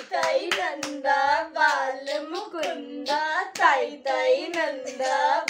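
A voice chanting a sing-song baby's clapping rhyme, with hand claps keeping time two or three times a second.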